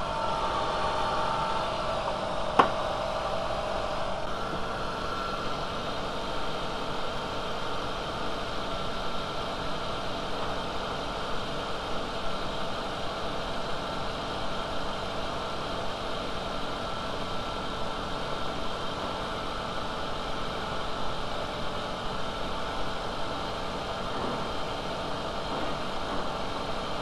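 VW Golf Mk4 2.0-litre four-cylinder engine idling steadily while warming up after a thermostat replacement, the new thermostat not yet open. A single sharp click sounds about two and a half seconds in.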